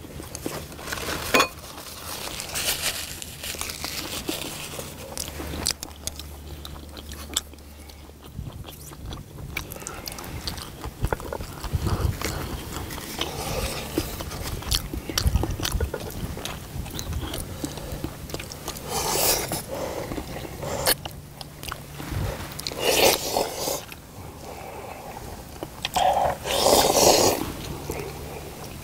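Close-up eating sounds of people chewing, biting and slurping saucy braised chicken legs, with scattered sharp clicks. Louder slurping bursts come several times in the second half.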